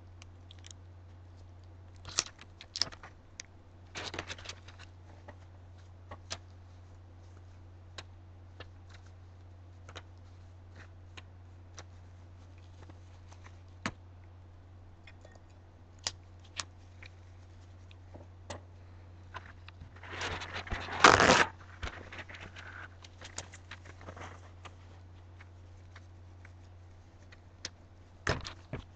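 Gloved hands handling a painted wine glass: scattered light clicks and taps, with a louder rustling scrape about twenty seconds in that lasts over a second, over a steady low hum.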